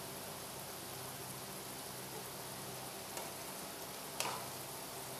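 Okra masala sizzling steadily in a nonstick pan while a wooden spatula stirs it, knocking against the pan twice a few seconds in, the second knock the louder.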